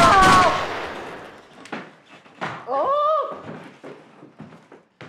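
A handgun shot: one sharp bang with a long fading tail, with a yell over it. About two and a half seconds in, a voice cries out.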